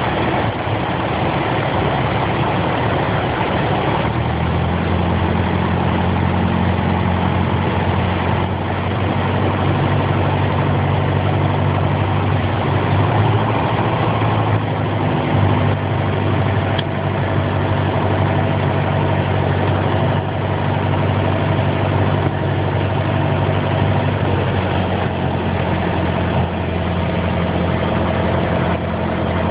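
Piper PA-28's single piston engine and propeller running with a steady drone. Its note changes about four seconds in, then holds steady.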